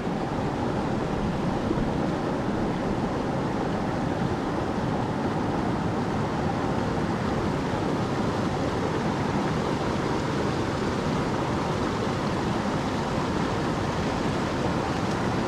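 River water rushing steadily, an even, unbroken wash of flowing water.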